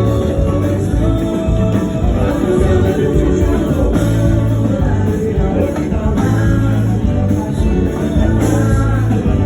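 Axé band music with a lead singer: steady loud bass and drums, guitar, and a sung melody on top.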